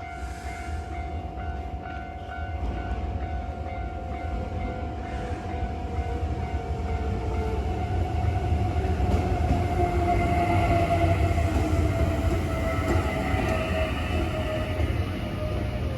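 Hankyu electric train passing through the level crossing: a deep rumble that builds to its loudest about ten seconds in. A whine slides down in pitch as the train goes by.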